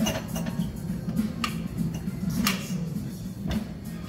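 Seated leg-extension machine clinking about once a second as reps are worked, over steady background music.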